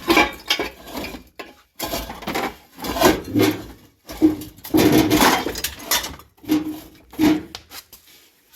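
A series of irregular clunks, knocks and scraping from something being moved and handled, in separate bursts with short gaps.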